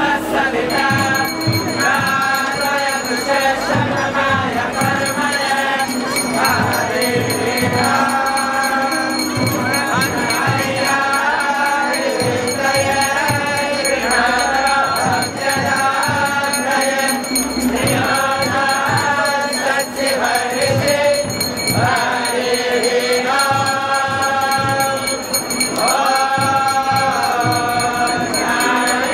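Devotional group chanting (kirtan) sung in repeating phrases by many voices, over steady rhythmic drumming and jingling hand percussion.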